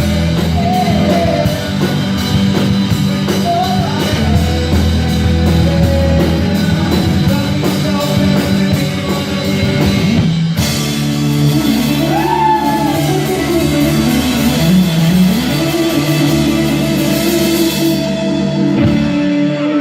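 Rock band playing with a singer: drum kit keeping a steady beat on the cymbals, guitar and bass under a sung melody. A brighter cymbal wash comes in about halfway and drops out near the end.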